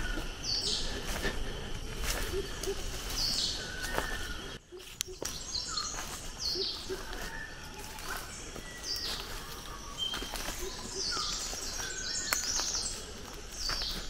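Forest birdsong: short whistled notes from a manakin recurring every second or two, mixed with higher chirps from other birds. There are occasional footsteps on dry leaves.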